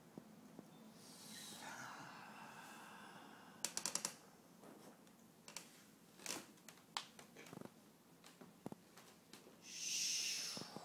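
Sound-poetry mouth sounds from a solo performer: a breathy, rasping exhale, then a fast run of sharp clicks, scattered single clicks, and a loud hiss near the end.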